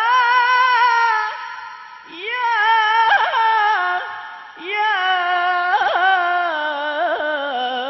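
A male lead singer singing a sholawat devotional song solo, in long, wavering, melismatic phrases with no drums. A new phrase begins about two seconds in and again about four and a half seconds in.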